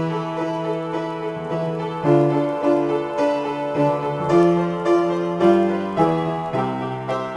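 Solo piano improvisation: chords struck about twice a second, each left to ring, with a melody line above them.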